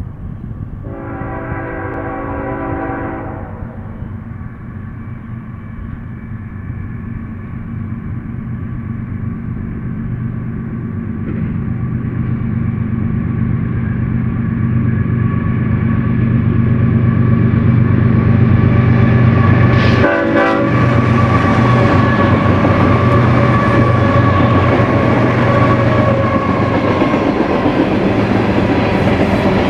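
BNSF diesel freight locomotives sound one horn blast of about two and a half seconds. Their engines then rumble louder as they draw near and pass about twenty seconds in, giving way to the steady rumble and clatter of freight car wheels on the rails.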